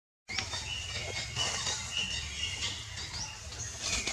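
Birds chirping in the forest: short high whistled chirps repeat over a steady low outdoor rumble, cutting in after a brief moment of silence.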